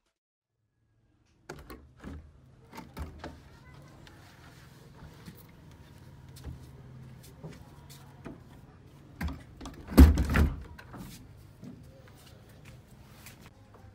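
A wooden plank door being handled and pushed open, with scattered knocks and clicks over a faint low steady hum, and a loud cluster of thumps about ten seconds in.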